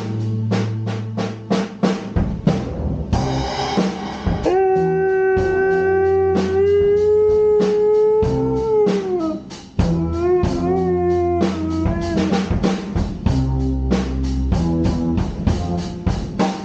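Dog howling along to music with a drum kit: one long howl that starts about four seconds in, holds a steady pitch for about five seconds, lifts slightly, then slides down at the end. A shorter, wavering howl follows about ten seconds in.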